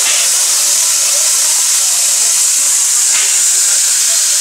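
Stationary Tkt48 steam tank locomotive hissing steadily with escaping steam.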